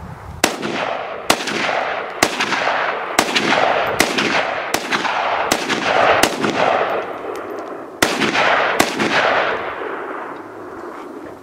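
Rifle in 7.62x39 firing about ten shots at roughly one a second, with a short pause about two-thirds of the way through. Each report is followed by a long echo that trails off.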